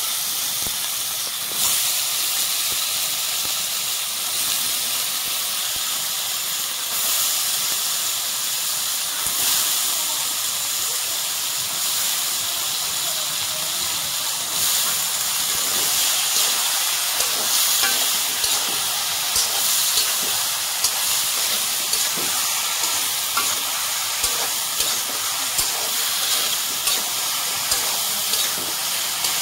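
Ridge gourd and potato pieces sizzling in hot oil and spice paste in a metal karahi, a steady hiss. In the second half a metal spatula scrapes and taps against the pan as the vegetables are stirred and coated.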